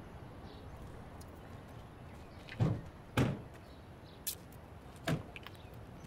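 Car doors of a Chevrolet Tracker SUV being shut: four short thuds and clicks over about two and a half seconds, the first two the loudest.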